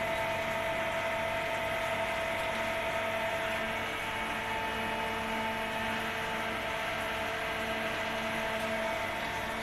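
Okuma MC-6VA CNC machining center running: a steady machine whine of several held tones over a continuous hiss, with a low hum pulsing on and off about every half second.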